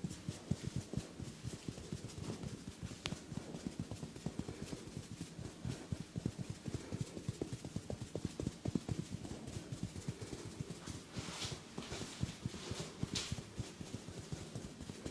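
Rapid rhythmic hand strikes of a massage, palms tapping on a person's head and body at several blows a second with no pause. A few short rustles come late on.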